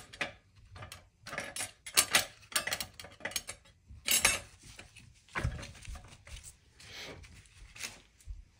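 Irregular metallic clinks and clicks of steel clutch plates and parts being handled and fitted into a clutch pack of a ZF 8HP55 eight-speed automatic transmission, with a few duller knocks about halfway through.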